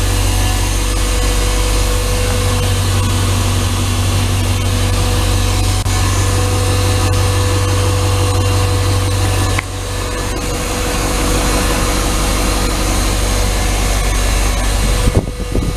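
1996 Blue Bird school bus's International T444E V8 diesel engine running at a steady idle. About ten seconds in the sound drops a little in level, then slowly builds again.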